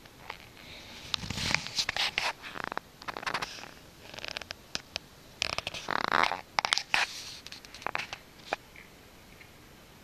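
Close handling noise: irregular rustling and scraping of clothing and skin against the microphone, with scattered sharp clicks. It dies down near the end.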